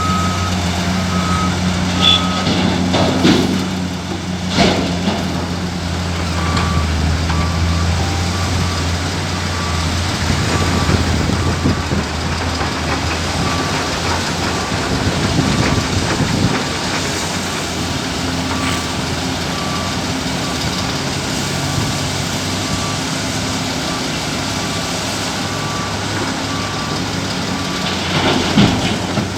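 Heavy diesel mining machinery running steadily, with a reversing alarm beeping about once a second through most of it. A few sharp knocks come in the first five seconds and again near the end.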